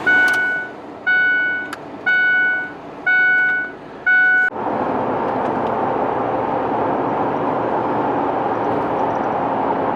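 A vehicle's electronic warning chime repeats about once a second, five times. About four and a half seconds in, a loud steady running noise sets in: the engine started after sitting unused for a long while.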